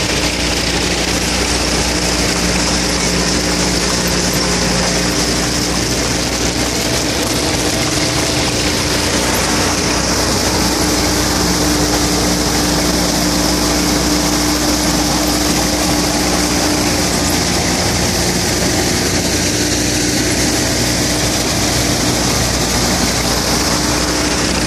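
Tractor-driven groundnut (peanut) combine thresher running under load, its drum and blower turning over with the tractor engine while it threshes pods. A loud, steady mechanical drone that does not let up.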